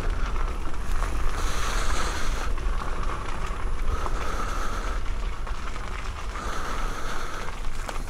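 Wind buffeting the microphone: a steady low rumble with a hiss over it that swells twice.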